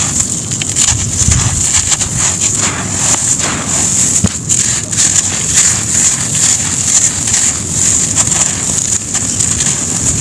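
Dry sand-cement crumbling and crunching onto a floor: a dense run of gritty crackles over a steady high hiss.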